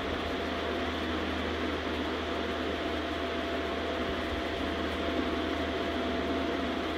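Steady machine hum and hiss, with a thin constant whine over a low drone and no change throughout.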